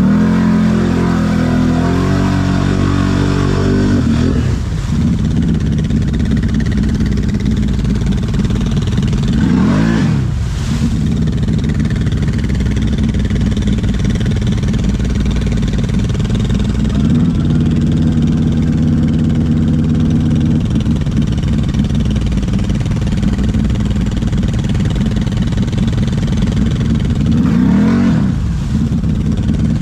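ATV engine running steadily, revving up and back down twice: once about ten seconds in and once near the end.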